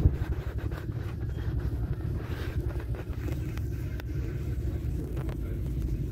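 Steady low rumble of a moving bus, engine and road noise heard from inside the cabin, with a few faint rattles.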